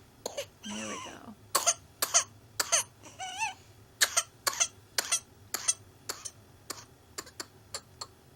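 A child's whooping cough (pertussis) paroxysm: a long run of short, sharp coughs in quick clusters, growing weaker toward the end. A drawn-out, wavering, high-pitched breath sound comes in about a second in and again about three seconds in.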